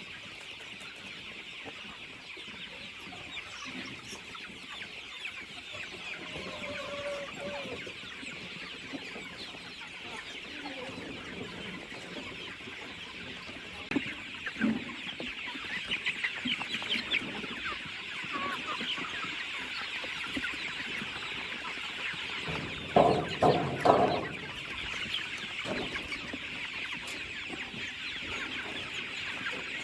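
A flock of free-range chickens clucking over a steady high chatter, with louder clucks about halfway through and a short loud burst of calls about three quarters of the way in.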